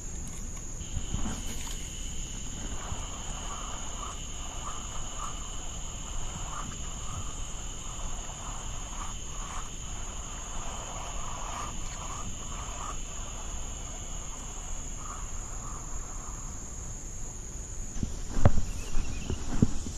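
Steady high-pitched drone of insects in summer woods, two pitches at once: the lower one stops about three quarters of the way through and the higher one near the end. Near the end a few thumps of footsteps through grass.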